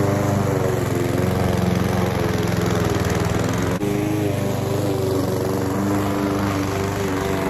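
PowerSmart 170cc single-cylinder gas lawn mower engine running steadily while cutting grass.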